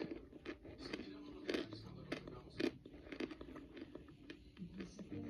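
Close-up crunching and chewing of a baked, microwaved brick of pressed cornstarch, with a sharp, brittle crunch every half second or so.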